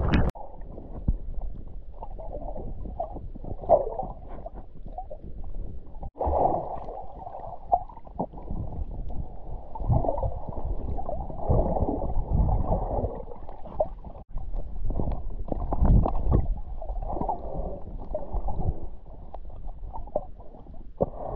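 Muffled underwater sound of a snorkeller swimming: irregular churning and gurgling of water in uneven swells. Everything above a low pitch is cut off from the moment the camera goes under the surface, just at the start.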